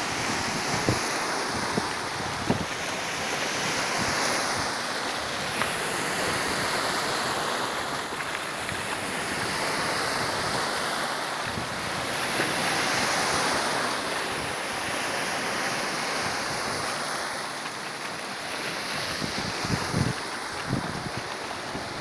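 Black Sea surf: choppy waves breaking and foaming in the shallows, the wash swelling and easing every few seconds. A few bumps of wind hit the microphone near the start and near the end.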